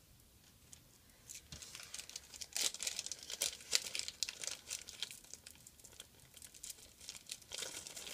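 Plastic packaging crinkling and rustling in uneven bursts of crackles, starting about a second and a half in, as craft supplies are rummaged through.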